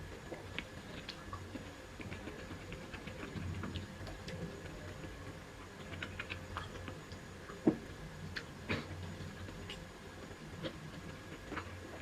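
A person eating dumplings: chewing with many small scattered clicks and taps. One sharper click comes about eight seconds in.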